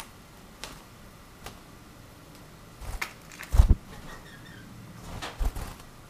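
A few soft knocks and low thumps of handling, the loudest about three and a half seconds in, as a man's hands move with a small tame finch perched on his fingers.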